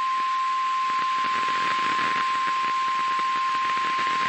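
NOAA Weather Radio 1050 Hz warning alarm tone: one long steady beep over radio hiss and crackle. It signals that a weather warning broadcast is about to begin.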